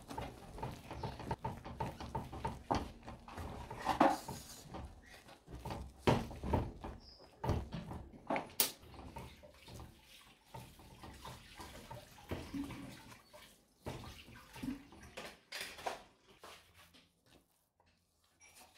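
Wooden spoon stirring and scraping a thick, moist burfee mixture of milk powder and butter-sugar syrup in a pot, with irregular knocks of the spoon against the pot. It grows quieter in the last few seconds.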